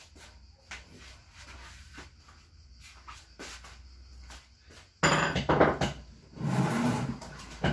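Faint knocks of things being handled, then about five seconds in a loud clatter of hard objects being shifted and set down, lasting about two seconds.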